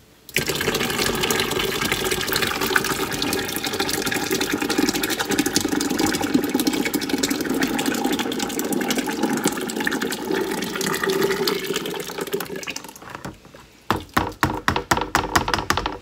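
Thick blended tomato sauce pouring and slopping from a plastic basin into a stainless steel stock pot in a steady, heavy stream for about twelve seconds. A quick run of about a dozen sharp knocks follows near the end.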